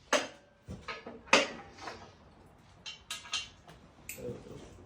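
A series of sharp metal clanks and rattles, several separate knocks spread over a few seconds, some of them briefly ringing.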